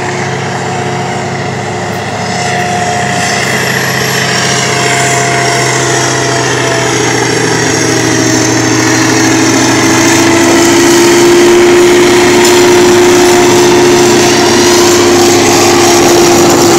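Freight train of tank cars rolling past at close range, with a diesel locomotive's engine growing louder as it approaches. Over the rumble runs a steady whine that becomes the loudest part of the sound in the second half.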